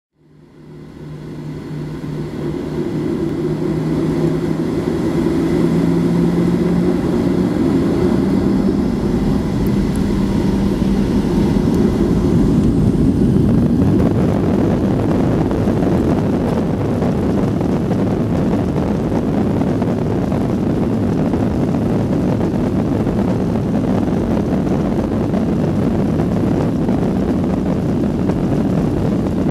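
Boeing 737 jet engines heard from inside the cabin during takeoff. A low hum rises in pitch as the engines spool up, then a steady, loud rushing noise of the takeoff roll takes over about halfway through.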